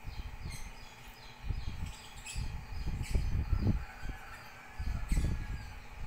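Soft, faint chirps from a cockatiel, over repeated low bumps and rustling from the phone being handled close up.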